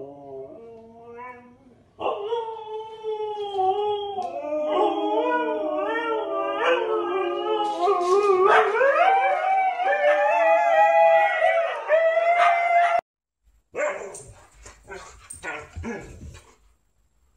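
Siberian huskies howling together: several long, wavering howls overlap at different pitches and grow louder and higher about halfway through. The howling cuts off suddenly near the end, and shorter dog yips and barks follow.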